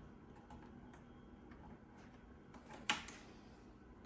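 Faint scattered clicks from furniture parts and hardware being handled during flat-pack assembly, with one sharp knock about three seconds in, followed by a smaller one.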